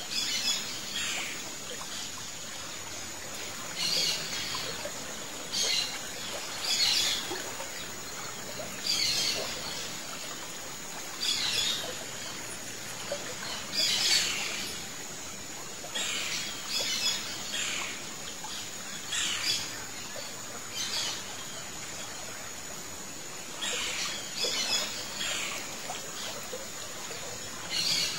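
A songbird singing short, high phrases again and again, one every second or two with a brief pause about three quarters of the way through, over a steady background hiss.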